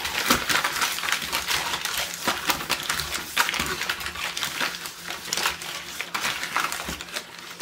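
Butter wrapper paper crinkling and rubbing across a ceramic baking dish as the dish is greased, a continuous rustle with many small scrapes.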